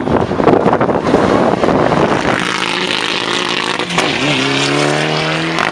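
Mitsubishi Lancer Evolution rally car's turbocharged four-cylinder engine at speed on a gravel stage. A rushing noise covers the first part, then the engine note comes through clearly, dips with a gear change about four seconds in, and climbs steadily as the car accelerates.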